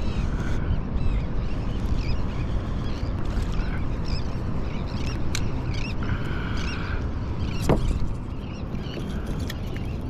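Wind rumbling on the microphone and water slapping a fishing kayak's hull while a hooked fish is reeled in on a baitcasting reel, with scattered short high squeaks. A single sharp knock comes about three-quarters of the way through.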